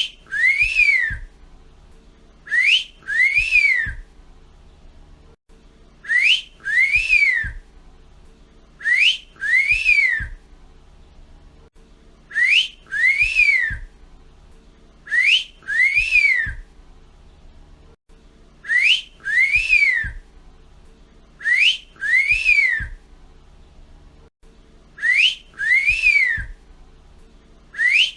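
Wolf whistle ("fiu fiu"): a person whistling the two-note catcall, a short upward-swooping note followed by a longer note that rises and falls. The call repeats about every three seconds.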